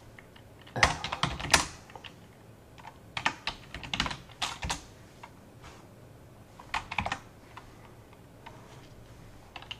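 Computer keyboard keys clicking in short bursts of typing, about four bursts with quiet pauses between them.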